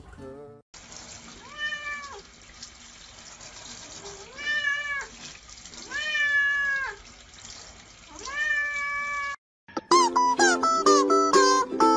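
A cat meowing four times, each meow about half a second to a second long, the last one drawn out and level. Plucked-string music starts near the end.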